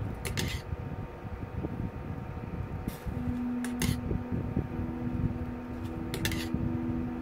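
Metal chopsticks clinking against a stainless steel pot a few times as ramen noodles are stirred at the boil, over a steady noisy hum; a steady tone joins the hum about three seconds in.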